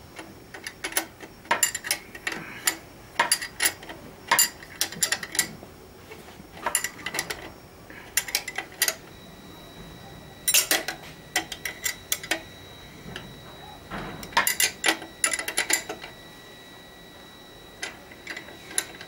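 Runs of quick metallic clicks from wrenches tightening the headlight-block nut on a motorcycle's triple tree, in short bursts with pauses between strokes.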